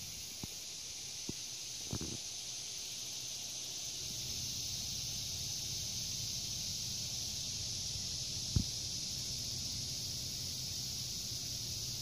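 Low buzzing of a bee's wings as it forages on garlic chive flowers close to the microphone, growing a little louder about four seconds in, over a steady high hiss and a few faint clicks.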